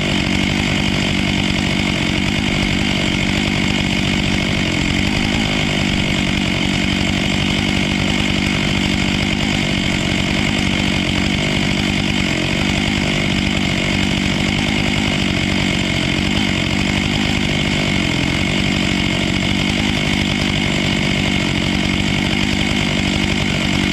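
Husqvarna 500i chainsaw running at full throttle through a long cut in a tree trunk, its pitch and loudness holding steady without a break.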